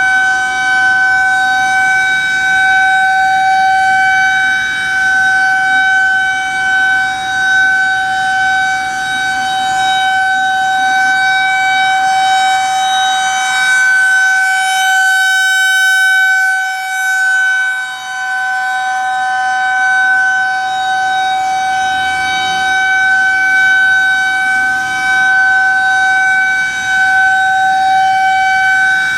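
Federal Signal 2001-130 rotating electromechanical warning siren sounding one steady tone at full pitch, loud. Its loudness rises and falls gently as the rotating horn turns.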